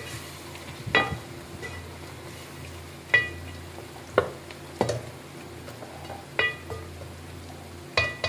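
A wooden spoon stirs a simmering curry in an aluminium pot over a steady low sizzle. It knocks against the pot's side every second or two, and each knock rings briefly.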